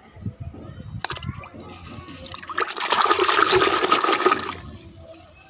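A hand swishing and splashing water in a plastic bucket to rinse paint-coated plastic toys, loudest for about two seconds in the middle. A few sharp knocks come about a second in.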